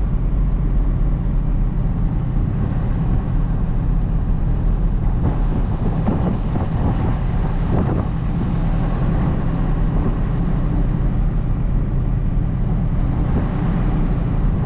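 Hino cab-over box truck's diesel engine running, a steady low drone heard from inside the cab.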